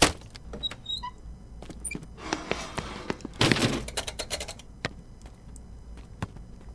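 Scattered knocks, thuds and clicks of actors and props moving about on a TV studio set, with no music. There are two short bursts of rustling, about two and a half and three and a half seconds in.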